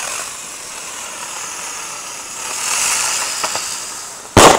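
A firework hissing steadily as it burns and climbs, then one loud bang near the end as it bursts.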